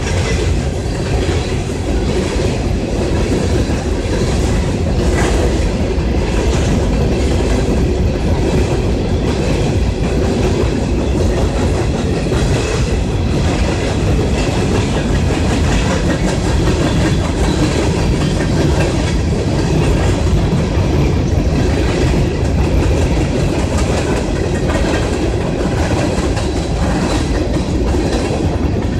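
Empty CSX coal hopper cars rolling past, a loud, steady noise of wheels on rail.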